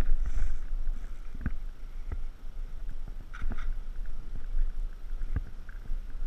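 Steady low wind rumble on a head-mounted action camera's microphone, with a few sharp clicks and knocks scattered through it as a spinning rod and reel are handled.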